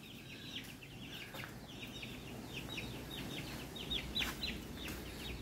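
Domestic chicks peeping: a steady run of short, high-pitched, falling peeps that come thicker after a couple of seconds.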